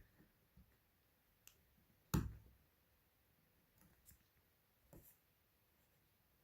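A few faint separate clicks and taps from small phone parts being handled as a ribbon-cable connector inside the Samsung Galaxy Note 3 is pressed home. The loudest click comes about two seconds in.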